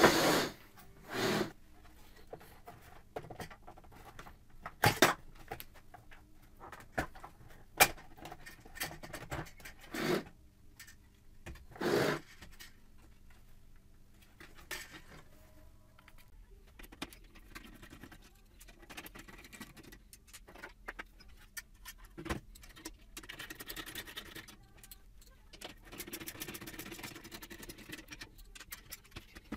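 Plastic parts of a BMW E46 ZKW xenon headlight being handled and prised apart by hand, with scattered knocks, clicks and clatters, sharpest in the first half. Later comes a faint, fast ticking as a screwdriver works the screws on the projector unit.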